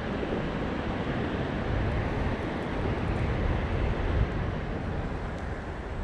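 Wind blowing across the action camera's microphone: a steady low rumble with a rushing hiss above it, rising and falling a little.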